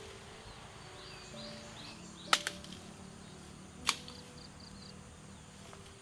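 Two sharp woody cracks about a second and a half apart, the first one doubled, as a cassava plant's stem and roots snap while it is uprooted. Soft background music and faint bird chirps run underneath.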